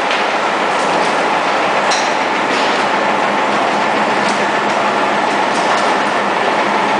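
Vogelsang XRipper twin-shaft grinder running on a meat processing line: a loud, steady mechanical din with scattered knocks and clatter, and a brief high squeal about two seconds in.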